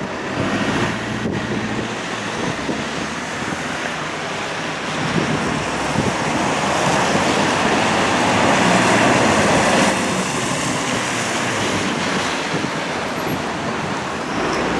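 Road traffic noise with wind buffeting the microphone; a vehicle passes close by, its tyre and engine noise swelling about halfway through and falling away suddenly near ten seconds in.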